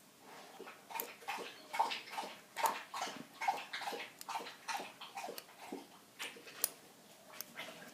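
A dog lapping water from a bowl: a steady run of quick wet laps, about two to three a second, tailing off near the end.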